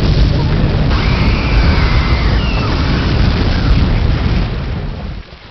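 Long low rumble of a huge explosion, steady for about four seconds, then fading and dropping off sharply near the end.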